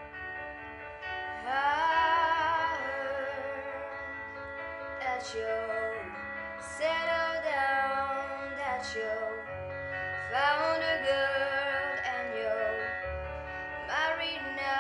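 A young woman singing with vibrato in several phrases over held instrumental notes.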